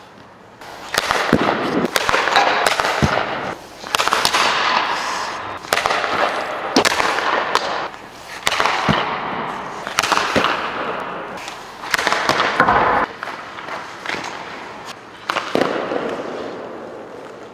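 Hockey pucks cracking off sticks, goalie pads and the boards, sharp hits about once a second that echo in an empty arena, each followed by the hiss of skate blades scraping the ice as the goaltender drops and slides.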